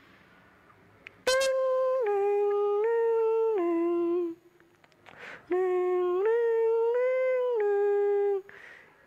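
A voice humming a slow tune of held notes that step up and down, in two phrases of about three seconds each, with a breath drawn between them. A short click comes just before the first phrase.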